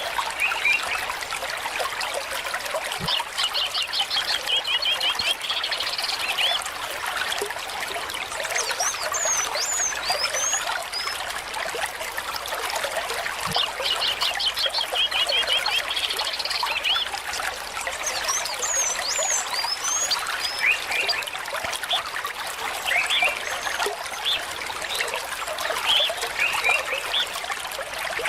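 Steady trickle of water at a pond, with birds chirping over it: a rapid trill comes twice, each followed by a few high, short chirps.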